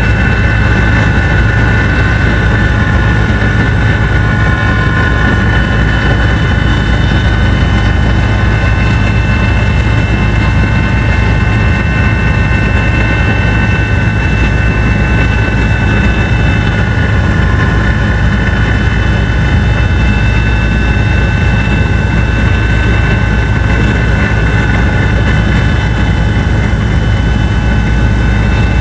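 Helicopter running steadily: a loud, constant drone from the engine and rotors, with a few steady high whining tones over it.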